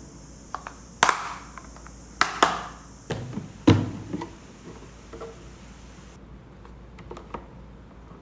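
Containers and food items being set down and moved about in a refrigerator: a string of sharp knocks and clacks, the loudest between about one and four seconds in, with a steady hiss that cuts off about six seconds in.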